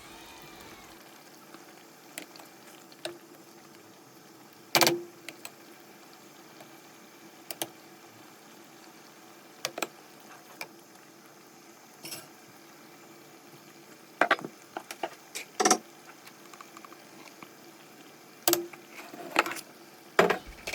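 Scattered clinks and knocks of kitchen utensils and dishes being handled, over a faint steady background hiss. The loudest knock comes about five seconds in, with a run of clinks in the last third.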